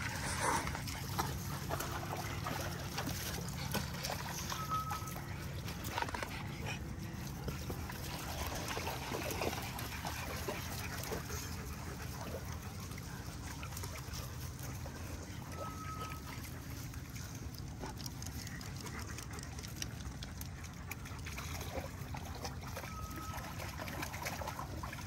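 Several dogs splashing and wading in a shallow muddy puddle, with water trickling and many small irregular splashes.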